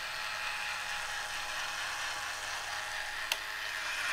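Battery-operated Charley Weaver Bartender tin toy running, its small electric motor and gear mechanism whirring steadily as it lifts the glass to its mouth. A single sharp click a little over three seconds in.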